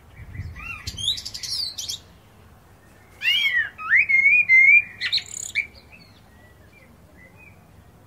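Male Eurasian blackbird singing in two phrases: first a thin, high twittering run, then, about three seconds in, a louder fluty warble of gliding notes.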